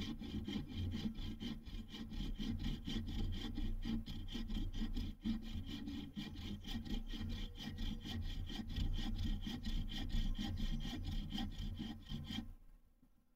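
Homemade folding bow saw cutting through a branch with steady back-and-forth strokes, which stop near the end.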